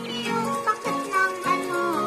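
Background music, with several short cries that fall in pitch over it.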